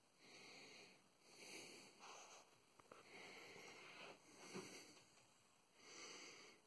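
Faint, slow breathing close to the microphone, soft hissy breaths coming every second or so, with a light click and a small knock partway through.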